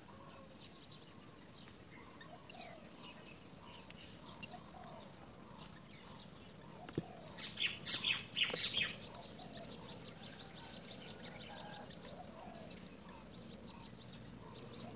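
Birds chirping around a nest, with a loud flurry of harsh calls about halfway through. Two sharp clicks come earlier.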